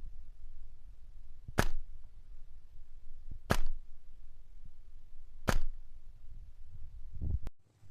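Three single shots from an airsoft gun, each a short sharp crack, about two seconds apart, over a steady low rumble. The sound cuts off abruptly just before the end.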